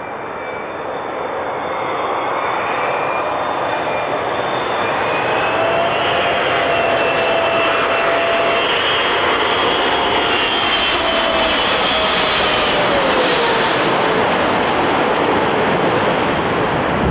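Boeing 777-300ER's two GE90 turbofans on final approach, passing low overhead: a jet whine grows louder, its tones drop in pitch as the airliner goes over about two-thirds of the way in, then a broad jet roar.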